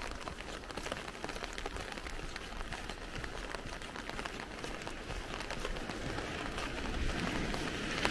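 Rain falling on an umbrella overhead: a dense, steady patter of drops hitting the canopy. A louder rushing noise starts to build near the end.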